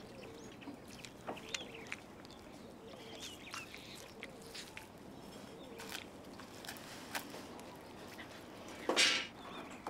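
Outdoor wildlife ambience: scattered short bird chirps and faint clicks over a quiet background, with one short, harsh, louder call about nine seconds in.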